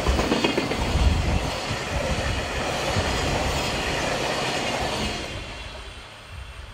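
Freight train of tank wagons rolling past close by: the wheels on the rails make a steady rumble with knocks, which drops away about five seconds in as the last wagon passes.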